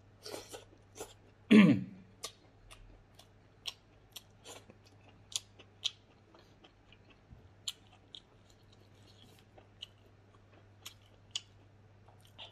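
Close-up chewing of a mouthful of food, with irregular sharp crunches and wet mouth clicks. A loud short throat sound comes about a second and a half in.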